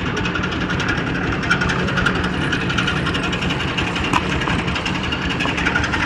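An engine or motor running steadily at a constant speed, with a fast even throb.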